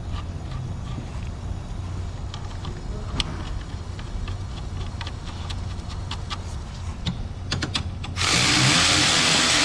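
Light metal clicks as bolts are set by hand into the engine torque mount, over a steady low hum. About eight seconds in, a power tool on a long socket extension runs a torque-mount bolt down for about two seconds, with a slightly rising tone; this is the loudest sound.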